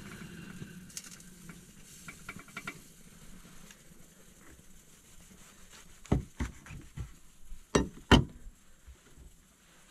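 A large kitchen knife knocking dully on a wooden cutting board as it cuts through a rolled burrito. There are a few knocks past the middle, and the two loudest come in quick succession near the end.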